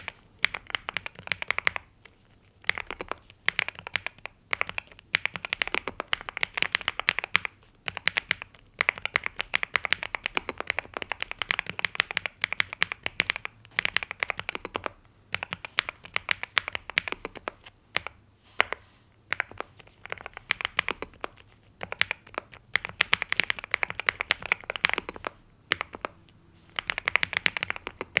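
Typing on a NuPhy Gem80 mechanical keyboard with linear NuPhy Mint switches and double-shot PBT mSA keycaps. The keys clack in rapid runs, broken by short pauses of about a second.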